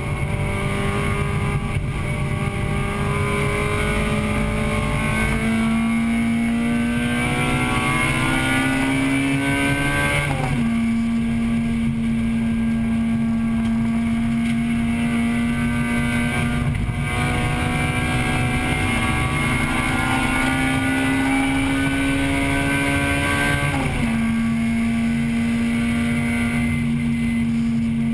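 A 1998 Acura Integra Type-R's 1.8-litre four-cylinder VTEC engine pulling hard under racing load, heard from inside the cabin. Its pitch climbs slowly and drops sharply at two gear changes, about ten and twenty-four seconds in, over steady wind and road noise.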